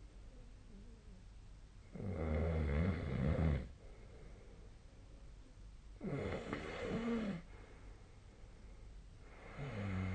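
A sleeping person snoring: three snores about four seconds apart, each lasting about a second and a half, with quiet breathing between them.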